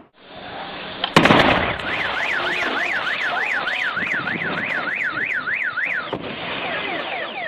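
A sudden loud bang, then a car alarm sounding: a warbling tone sweeping up and down about three times a second, which changes about six seconds in to quick, repeated falling whoops.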